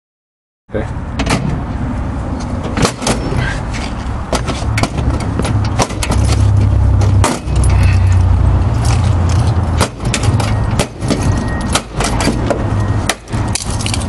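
Sharp metal clanks and knocks, roughly one a second at uneven spacing, as forcible entry irons (Halligan bar and flathead axe) strike and pry at a padlocked hasp until the hasp is torn off the door. A steady low rumble runs under the blows.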